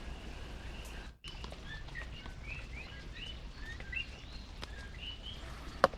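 Common coqui frogs calling as their chorus is just starting: scattered two-note "co-qui" calls, each ending in a short rising chirp, over a faint steady hiss. A sharp click comes near the end.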